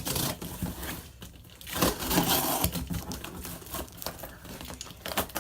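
A shipping package being opened by hand: cardboard and packing material crinkling and tearing in irregular bursts, loudest about two seconds in.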